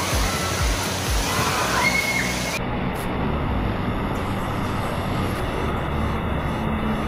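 Steady rush of water pouring from a water slide's tube into its shallow run-out lane, with the wash of a busy indoor waterpark.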